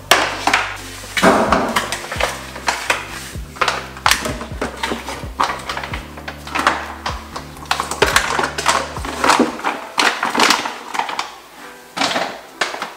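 Background music with a steady bass line that drops out about three-quarters of the way through, over irregular knocks and clatter of plastic containers being handled and packed into a kitchen cabinet.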